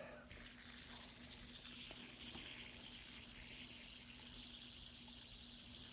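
Fidget spinner spinning on its bearing: a faint, steady whirring hiss with a low steady hum under it.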